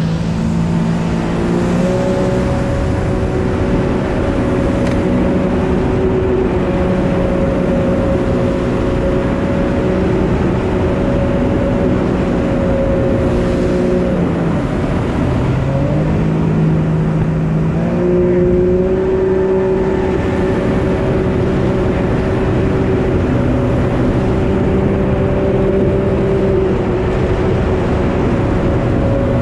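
Jet ski engine running steadily at cruising speed over a rushing hiss. About 14 seconds in the throttle eases and the pitch drops, then it climbs back up in two steps a couple of seconds later.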